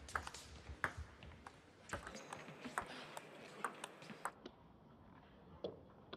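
Table tennis ball clicking off the players' bats and the table during a rally: a dozen or so sharp ticks at uneven spacing, with a faint steady background hiss.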